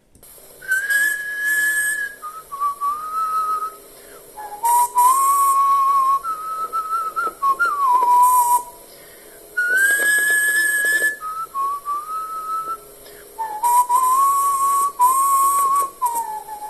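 A man whistling a short tune: a single clear whistled melody in several phrases, sliding between higher and lower notes, with short pauses between phrases.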